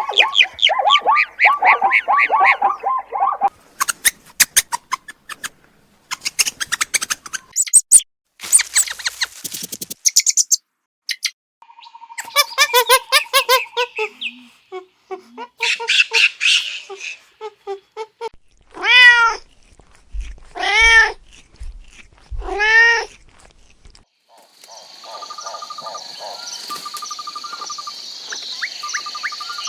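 A run of different farm animal calls, one after another. About two-thirds of the way in, a cat meows three times, each meow long and rising then falling in pitch. Near the end comes steady insect chirping.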